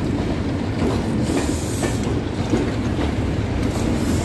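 Class 47 diesel locomotive's Sulzer V12 engine running steadily under heavy power as the train pulls away, with the rumble of the train rolling and a few faint knocks.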